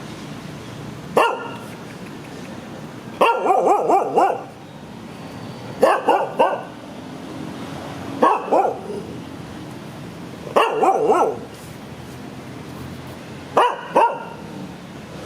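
Dog barking in short bursts of one to several barks, repeating about every two to three seconds.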